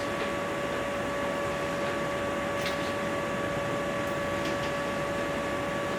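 Steady hiss with a constant high hum, the background noise of a lecture-room recording, with two faint ticks about midway.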